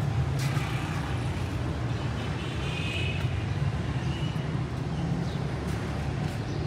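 A steady low engine hum with outdoor background noise, even throughout.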